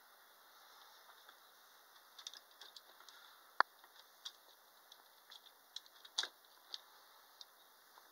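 Faint, scattered clicks and taps of a Lionel 259E O gauge locomotive's metal chassis and wheels being handled and turned by hand, with one sharper click about three and a half seconds in.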